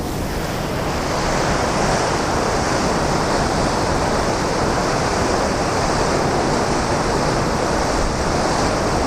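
Steady rushing of water from the Great Falls of the Passaic River, still flowing beneath and behind its ice.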